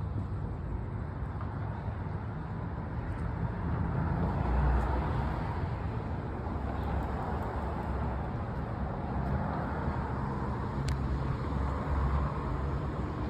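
Steady road traffic noise, a low rumble with a wash of tyre and engine noise that swells about four seconds in.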